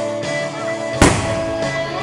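A country song with guitar and drums plays steadily, and about halfway through a single sharp firework bang cuts across it.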